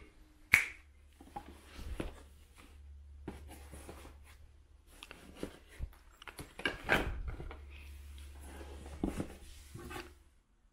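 Camera gear being handled in a padded camera backpack: scattered clicks, knocks and rustles, the sharpest a click about half a second in.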